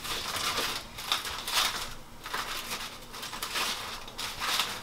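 Aluminium foil crinkling and rustling in a run of short bursts as it is pulled open by hand.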